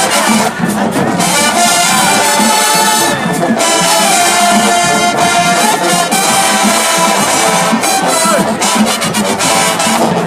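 Marching band playing loudly, its brass section of trumpets and trombones carrying the melody without a break.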